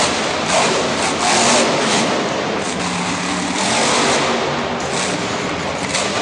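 Grave Digger monster truck's supercharged V8 revving hard, the noise surging up and down in repeated bursts of throttle as the truck launches and jumps.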